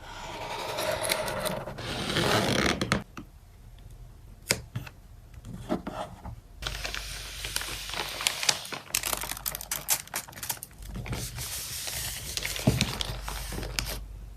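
Close-up handling of photocard packing materials: rustling and scraping in two long stretches, with scattered sharp clicks and taps between and through them.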